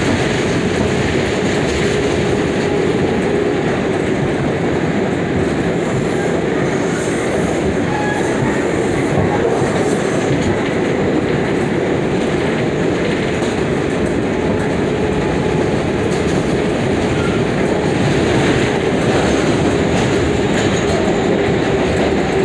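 New York City Subway 7 train running steadily, heard from aboard: a continuous rumble of wheels on the rails with a faint steady whine underneath.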